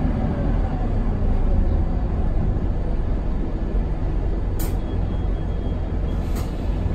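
Interior of a Scania K280UB city bus: its 9.3-litre five-cylinder diesel and road noise make a steady low rumble as the bus comes to a halt. Two short, sharp hisses of compressed air from the air brakes come about four and a half and six and a half seconds in.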